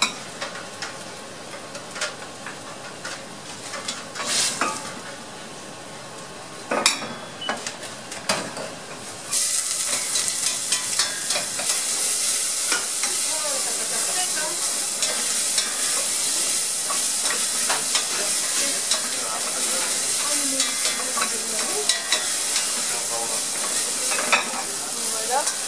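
Chopped onions going into hot olive oil in a stainless saucepan on a gas burner about nine seconds in, setting off a sudden, steady sizzle as they start to sweat and are stirred with a spatula. Before that, a few sharp knocks of pans and utensils.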